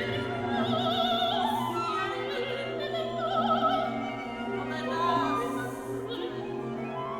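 Background classical music: an operatic voice sings a melody with wide vibrato over sustained orchestral accompaniment.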